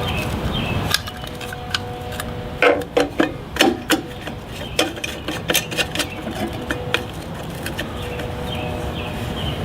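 Small gas push-mower engine running steadily after being revived, with scattered clicks and knocks of parts being handled over it.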